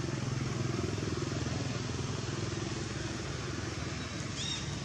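A motor vehicle engine, likely a motorcycle, runs steadily and fades slightly toward the end. A brief high chirp sounds near the end.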